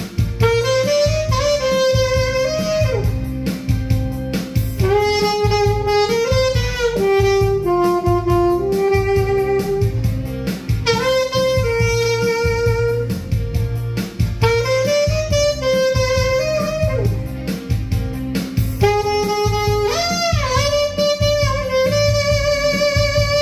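Saxophone playing a song melody in phrases with short breaths between them, over a recorded backing track with bass and a steady beat. About twenty seconds in, a note is bent up into place.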